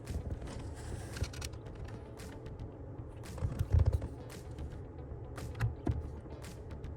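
Scattered clicks and knocks of hands and tools working on car interior parts, with a few heavier thumps a little past halfway.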